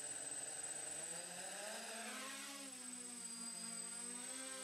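DJI F550 hexacopter's six electric motors and propellers throttling up for takeoff, a whine rising in pitch about two seconds in, then settling into a steady multi-toned buzz as it hovers.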